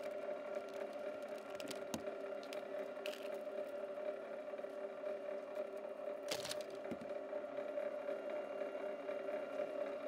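Electric motor and gear drive of a BLUEROCK MWS-808PMO motorized wire stripper running with a steady hum. A few light clicks come about two seconds in, and a brief scraping rustle about six seconds in, from the cable and its stripped copper strands.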